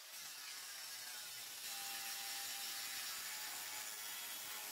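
Angle grinder with a cutting wheel working through a steel lawnmower deck: a steady hissing whine that gets louder about a second and a half in as the wheel bites into the metal.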